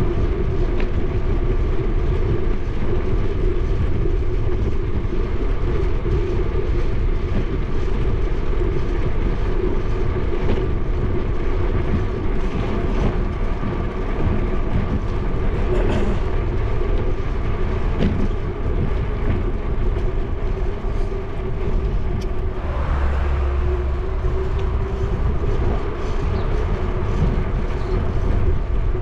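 Steady wind rumble and rolling hum from a bicycle riding along a paved bike lane, picked up by a camera mounted on the bike, with a short downward sweep in pitch about three-quarters of the way through.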